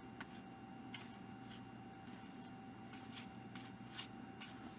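Faint, irregular swishes and light taps of baseball cards being slid and flipped one at a time off a pack stack, over a faint steady hum.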